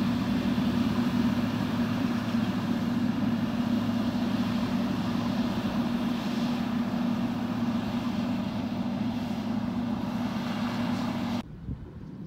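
Motor grader's diesel engine running steadily while it cuts and pushes soil with its blade: a continuous low drone with a strong hum. It stops abruptly near the end, leaving a much quieter background.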